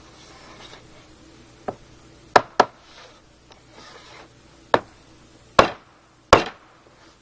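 Wooden wedges of a clamp board being tapped tighter to put more clamping pressure on a glued panel: six sharp knocks, the last two loudest, with soft scraping between them.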